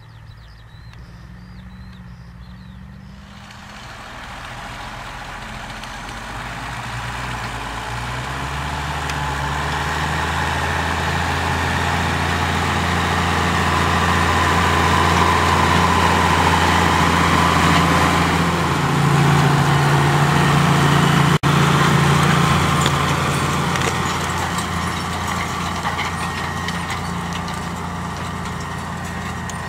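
New Holland TM165 tractor's six-cylinder diesel running steadily under load as it pulls a seed drill past, growing louder as it comes close and then fading as it moves away.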